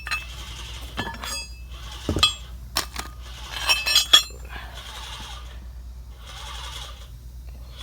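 Metal hardware from a rear-axle lowering flip kit being handled, with scattered sharp clinks and knocks that cluster about two to four seconds in.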